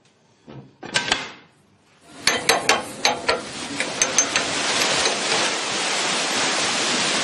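Canal lock paddle gear: a run of sharp ratchet clicks as the paddles are wound up, followed by a steady rush of water pouring through the lock.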